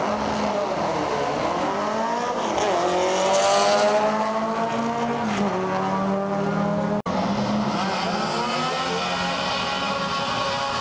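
VW Beetle drag cars' engines revving hard as they launch and pull away down the drag strip, the pitch dipping and then climbing. A short break about seven seconds in is followed by another drag car's engine running at high revs.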